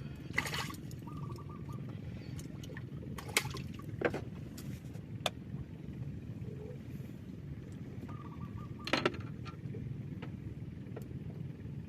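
Steady low drone of a boat motor running, with a few sharp knocks and clicks, the clearest about three and nine seconds in.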